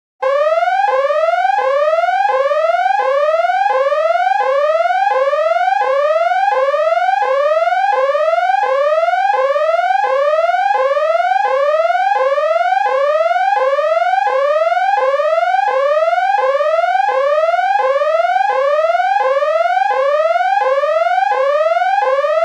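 Siren sounding in rapid repeated rising whoops, about one and a half a second. Each whoop sweeps up in pitch and drops back at once, starting abruptly.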